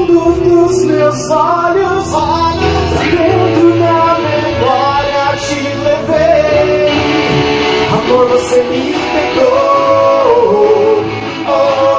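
Live band music: a male singer sings a melody into a microphone, backed by electric bass and the band.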